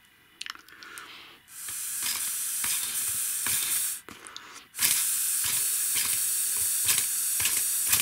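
Air hissing through a small 3D-printed vertical compressed air engine as air is blown in through its feed tube, in two long blasts, the first from about a second and a half in and the second from about five seconds in, with light clicks from the engine's plastic parts.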